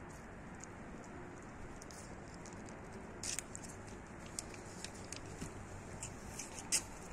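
Russian blue kitten eating from a plastic bowl: irregular small crunching clicks of chewing, starting about three seconds in, over a steady background hiss.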